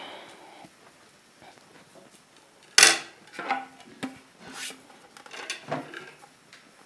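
Cutlery and dishes clattering together in a few short knocks, the loudest about three seconds in.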